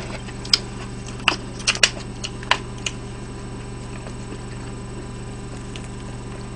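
Several short, sharp clicks and taps in the first three seconds, then only a steady low hum.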